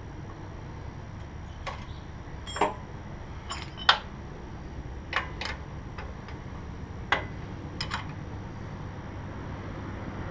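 Small scattered metallic clicks and taps of hand tool work, an Allen wrench on the set screws of a mini bike clutch's cable stop, about eight in all, the sharpest a little under four seconds in, over a faint steady low hum.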